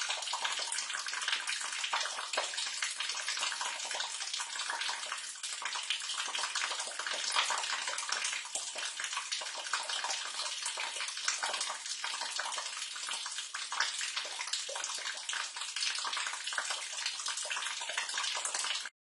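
Water pouring and splashing into a sewer, a steady splashing rush full of small spatters that cuts off abruptly near the end.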